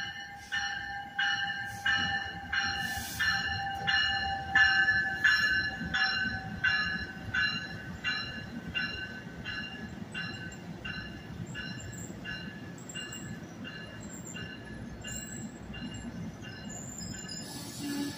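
NJ Transit bi-level commuter train pulling into a station with its bell ringing about one and a half strikes a second, the strikes growing fainter as it passes. A steady squeal from the slowing train fades out in the first half, over the low rumble of the cars, and a short burst of hiss comes near the end.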